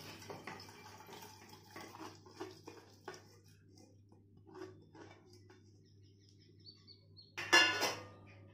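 Soaked toor dal grains pattering and clicking as they are tipped and scraped from a perforated steel colander into a pressure cooker, the clicks thinning out as the colander empties. Near the end, one loud metallic clang as the steel colander is set down.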